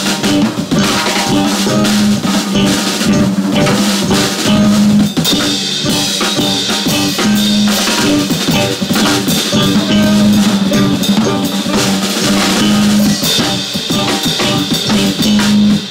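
Live improvised jazz from a quartet: a Canopus drum kit playing busy snare, bass drum and cymbal patterns while a tenor saxophone plays long held notes, with electric guitar and electric bass underneath.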